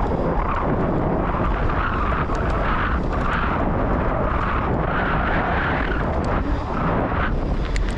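Steady rumble of wind buffeting the microphone and bicycle tyres rolling over dirt and gravel at race speed, with scattered small clicks and rattles.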